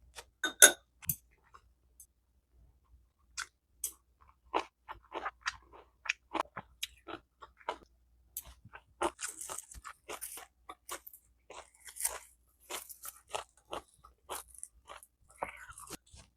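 A person chewing and crunching food close to the microphone: irregular crisp crunches and wet mouth clicks. The loudest is a sharp click a little under a second in, and the crunching grows denser about halfway through.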